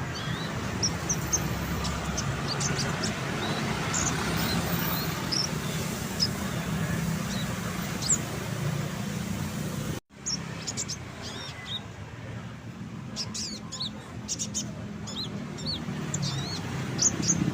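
Konin songbird chirping and twittering: many short, high, quick notes scattered all through, over a steady low rumble. The sound breaks off for an instant about ten seconds in.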